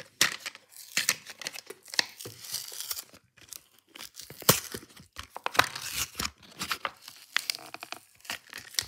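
Toy car's blister pack torn open by hand: cardboard backing card ripping and plastic crinkling in a run of irregular rips and crackles.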